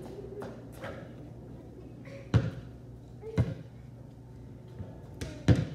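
A basketball bouncing on a concrete driveway: three loud bounces, the first two a second apart and the third about two seconds later, with fainter knocks in between.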